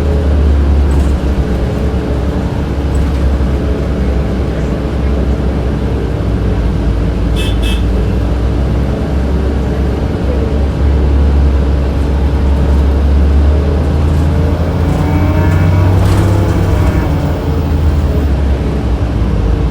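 Inside a 2007 Orion VII transit bus under way: a steady low drone from the engine and HVAC. A short high beep comes about seven and a half seconds in, and the engine note rises and falls around sixteen seconds in.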